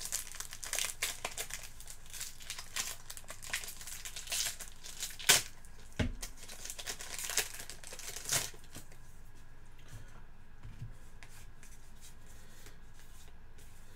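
Card pack wrapper crinkling and tearing in the hands: a run of crackles and small snaps for about eight seconds, loudest about five seconds in, then only faint handling ticks.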